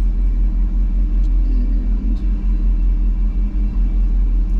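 Steady low rumble inside the cab of a 1975 GMC K15 pickup on the move: its swapped-in 5.3 L LS V8 and road noise, with a few faint clicks.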